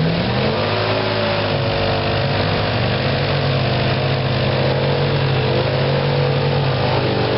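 Chevy pickup's engine running at raised revs while the truck sits stuck in mud, its pitch climbing over the first second or two and then holding steady.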